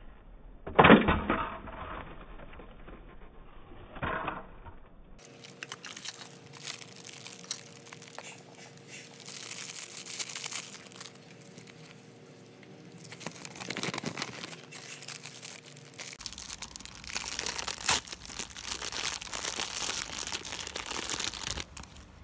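Plastic wrapping and small foil and paper packets of an L.O.L. Surprise toy ball crinkling and tearing as they are peeled open by hand, with one loud sharp crackle about a second in and denser crinkling near the end.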